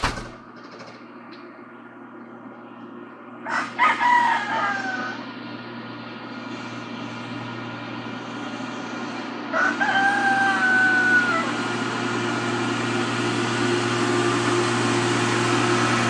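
A rooster crows twice, about four and ten seconds in, over the steady drone of a tractor pulling a boom sprayer, which grows louder as it approaches.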